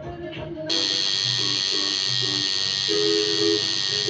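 Brief music, then, a moment in, a coil tattoo machine starts buzzing steadily and loudly as it works on skin.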